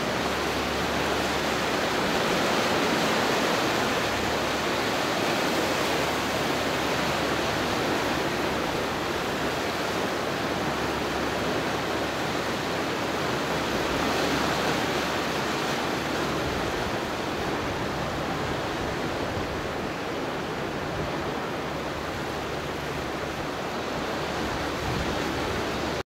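Ocean surf surging and washing through a narrow channel between rocks: a steady rush of churning seawater, swelling slightly a few seconds in and again about halfway through.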